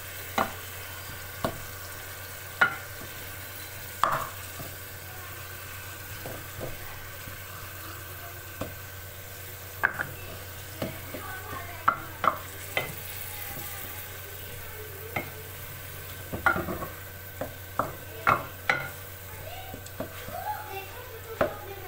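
Wooden spatula stirring minced meat frying in oil in a metal karahi, with irregular knocks and scrapes against the pan over a low sizzle. The knocks come more often in the last few seconds.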